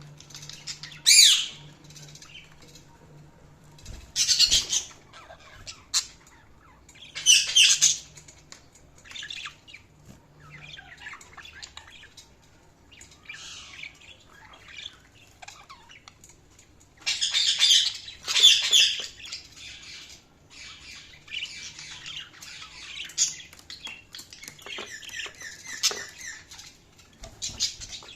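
Budgerigars calling and chattering: loud, sharp squawks come in short bursts, about five of them, and rapid warbling chatter runs on between them, busiest in the latter part.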